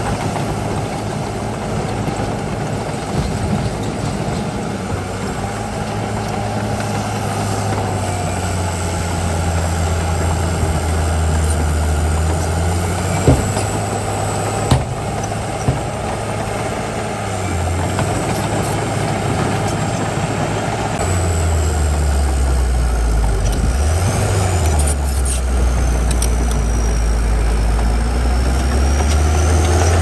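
Heavy diesel earthmoving machinery running under changing load. The low engine note shifts in pitch and gets louder about two-thirds of the way through. A few sharp metallic clanks come near the middle, and a faint high whine rises and falls.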